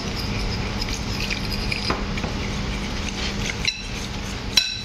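Metal spoon stirring a wet gram-flour (besan) batter in a glass bowl, with light scrapes and a ringing clink of spoon against glass near the end. A steady low hum runs underneath.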